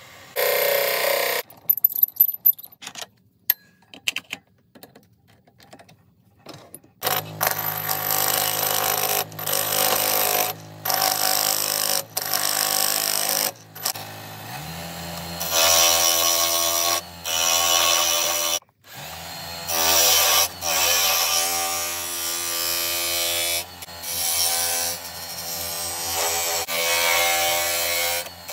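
Wood lathe motor humming steadily while a turning tool cuts into a spinning wood blank in repeated passes of a second or two, shavings tearing off with a rough scraping hiss. Before the lathe runs there are a few sharp clicks and knocks.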